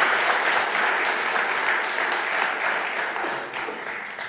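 Audience applauding, many hands clapping together, the sound fading away over the last couple of seconds.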